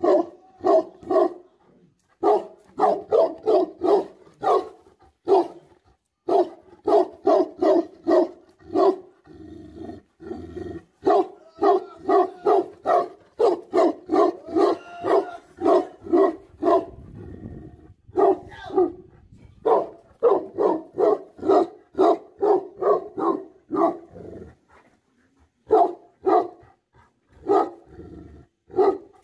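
Tibetan Mastiff barking aggressively: deep barks about three a second, in runs of several seconds with short breaks between.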